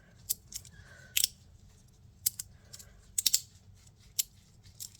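Small fidget slider being slid back and forth, giving sharp irregular clicks, some in quick pairs or threes.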